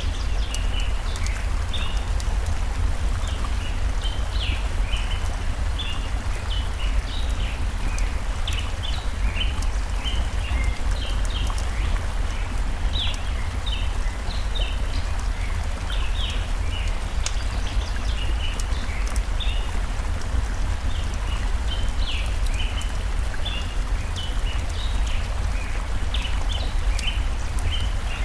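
Layered nature ambience: small birds chirping in quick short notes throughout, the sharp pops of a crackling campfire, and a steady low rush of running stream water underneath.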